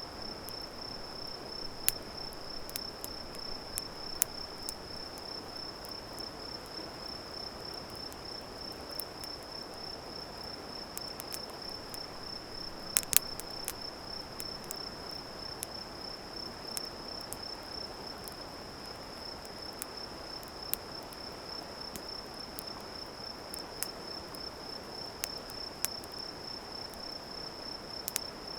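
An insect trilling steadily at one high pitch without a break, over a soft hiss, with scattered sharp crackles and pops from a wood campfire; the loudest pops come in a cluster about halfway through.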